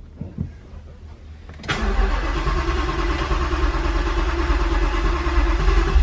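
First start of a freshly swapped 5.2-litre V8 with a VMP Odin supercharger in a 2019 Mustang GT. After a couple of faint clicks, the engine fires about a second and a half in and keeps running steadily and loudly through a Corsa Xtreme exhaust.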